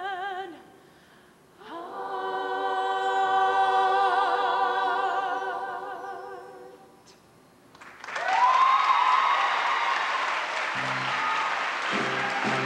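Show choir singing a long held final chord with vibrato that swells and then fades away. About a second later the audience breaks into applause and cheering. Near the end instrumental music starts up.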